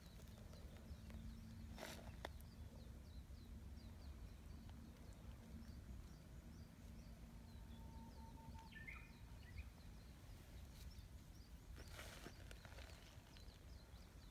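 Near silence: quiet outdoor ambience with a steady low rumble and faint, scattered bird chirps, plus two brief rustles, about two seconds in and again near the end.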